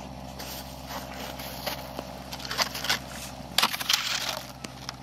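Crunching on packed snow in three short bursts, the last about three and a half seconds in being the loudest, over a steady low hum.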